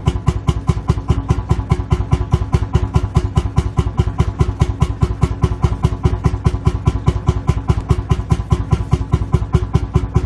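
Lanz Bulldog's single-cylinder two-stroke hot-bulb engine idling, its firing strokes coming as a steady, rapid, even thumping beat.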